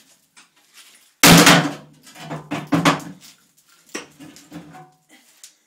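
Sledgehammer striking a cast-iron bathtub: a heavy clanging blow a little over a second in, with the iron ringing after it, then several smaller knocks and clatters and another sharp hit about four seconds in.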